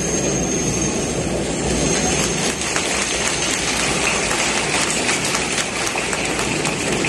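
Large stadium crowd applauding, a dense wash of clapping whose individual claps grow more distinct after a couple of seconds.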